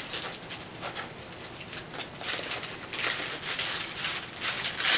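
Wrapping paper rustling and tearing as presents are unwrapped by hand, in short scratchy spells, loudest about three seconds in and again near the end.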